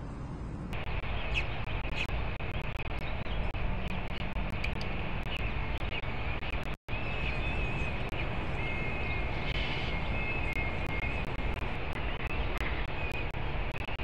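Peregrine falcon chicks giving thin, high, wavering begging peeps while being fed, over a steady rumble of city traffic. The sound is missing for a moment at the start and cuts out briefly about seven seconds in.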